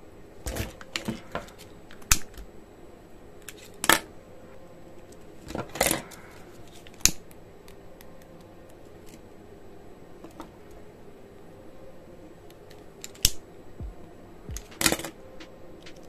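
Small tools and wires being handled on a wooden tabletop: about half a dozen sharp clicks and taps at uneven intervals, with softer rustling between, as motor leads are twisted into a twist-on wire connector.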